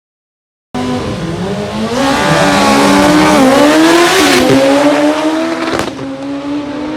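A car engine revving, its pitch wavering up and down, with tires squealing and a loud noisy hiss at its peak. It starts abruptly about a second in and is loudest in the middle.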